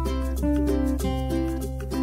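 Background music: a light, bouncy tune of plucked strings over a sustained bass.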